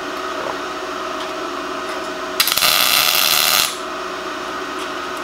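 MIG welder arc crackling in one weld burst of just over a second, about halfway through, over a steady machine hum. The arc strikes with the ground clamp on the cart, not on the workpiece, so the cart's steel top plate is carrying the welding current.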